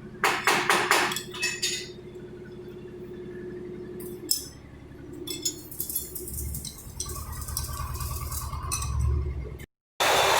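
Lathe running with a steady hum, with a quick run of sharp metal-on-metal clinks about a second in and a few more scattered clinks later. The sound drops out for a moment near the end.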